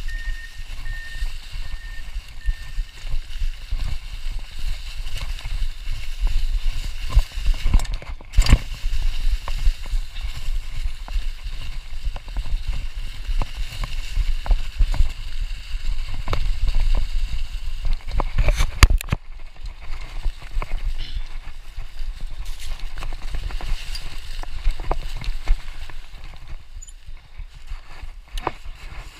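Mountain bike being ridden over a leaf-covered forest trail: a steady low rumble with frequent knocks and rattles as the bike bumps along. The loudest knocks come about eight seconds in and again around nineteen seconds.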